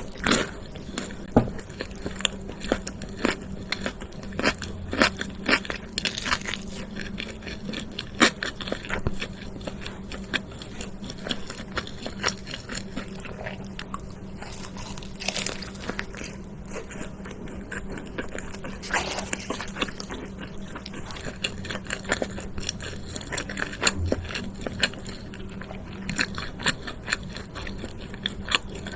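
Close-miked eating of fast food: someone biting and chewing, with irregular sharp crunches and clicks throughout.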